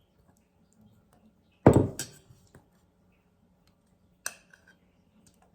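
A metal spoon stirring thick slime in a bowl, knocking against the bowl a few times; the loudest knock, about a third of the way in, has a dull thud to it.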